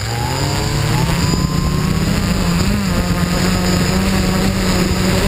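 Quadcopter's electric motors and propellers spinning up from rest: a whine rising in pitch over the first two seconds, then holding a steady hum as the quad sits ready to lift off.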